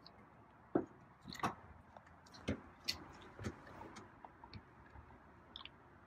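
A cat eating wet food from a bowl: irregular clicks and smacks of chewing, several in the first few seconds, thinning out near the end.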